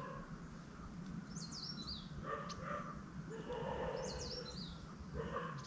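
A bird calling in the background twice, each time a short phrase of quick high chirps, over a faint steady ambient hum.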